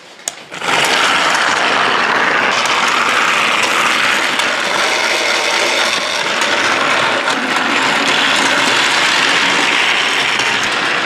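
Battery-powered motorised toy train switched on with a click, then its small motor and plastic gearbox whirring steadily as it runs along plastic track.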